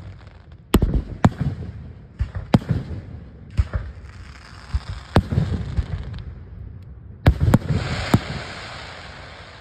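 Aerial firework shells bursting overhead: about eight sharp bangs at uneven intervals, two in quick succession about seven seconds in, followed by a lingering hiss.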